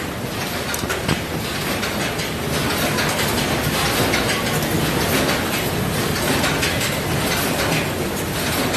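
Processing-line conveyor belts and machinery running with a steady, dense rattle and clatter.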